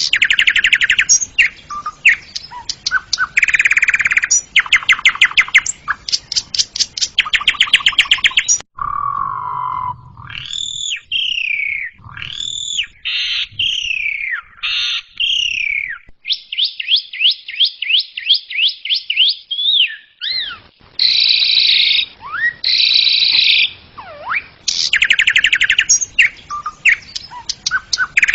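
Asian pied starling (jalak suren) singing loudly: fast chattering trills mixed with whistled notes that slide up and down. About nine seconds in the song breaks off abruptly and gives way to slower whistled phrases, then the rapid trilling returns.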